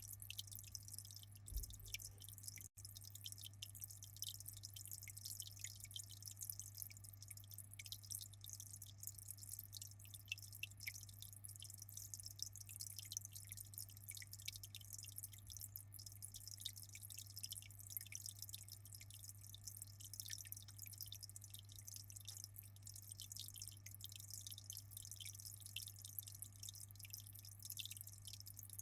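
Aquarium water trickling and dripping steadily, faint and even, over a low steady hum.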